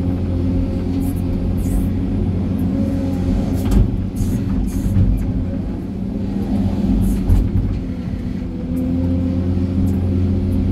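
Hydraulic excavator's diesel engine running under digging load, heard from inside the operator's cab, with the bucket scraping and knocking against rocky ground a few times.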